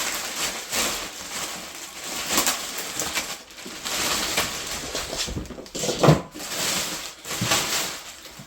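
Rustling and knocking as packaging and boxed parts are handled, with the loudest knock about six seconds in.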